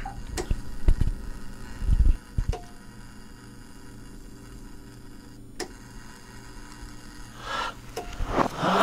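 A low, steady hum with a few scattered sharp clicks and knocks and a couple of low thuds in the first half. Near the end comes rustling, as a person shifts on a couch.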